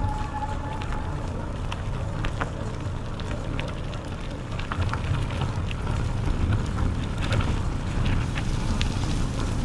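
A bicycle riding along a trail: steady wind rumble on the microphone, with scattered small crackles and ticks from the tyres and bike.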